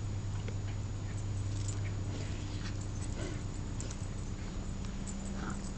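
Dogs moving about, their claws clicking and tapping, with a short whine near the end, over a steady low hum that shifts up in pitch a little over halfway through.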